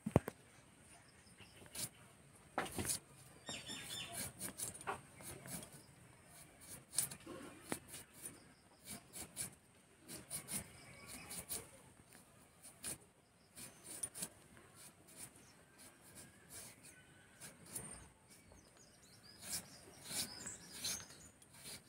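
Potato being peeled against a boti's upright curved blade: soft, irregular scrapes and clicks as the blade takes off the skin. Birds chirp faintly in the background.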